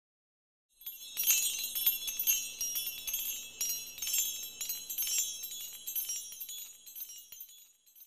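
Tinkling chimes: a dense run of small, high, bell-like rings that starts about a second in and fades out near the end.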